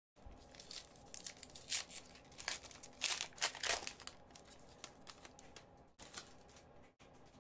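A hockey card pack's foil wrapper torn open and crinkled by hand: a dense run of sharp crackles, loudest about three to four seconds in, settling to faint handling rustle after about six seconds.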